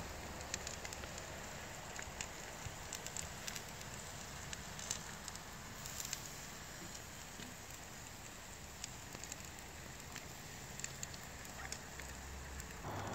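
Sauced sockeye salmon fillets sizzling on a charcoal grill: a faint steady hiss with scattered small pops and crackles as the juices cook.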